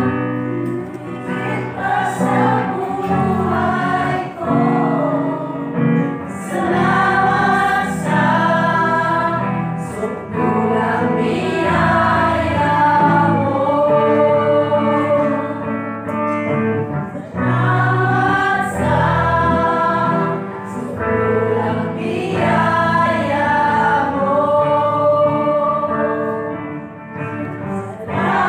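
A group of women singing a gospel song together in unison, over steady low accompaniment notes.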